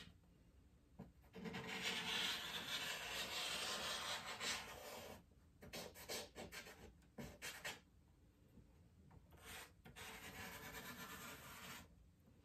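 Vine charcoal rubbing and scraping across drawing paper: a long run of continuous strokes starting about a second in, then a few short separate strokes, then a softer run of strokes near the end.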